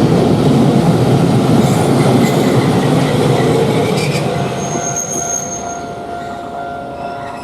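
Hiroden Miyajima Line tram passing over a level crossing, its running noise loud at first and fading as it moves away, with a brief high wheel squeal about five seconds in.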